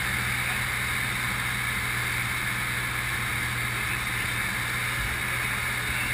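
Piston engine and propeller of a single-engine Grob light aircraft droning steadily in flight, heard from inside the cockpit.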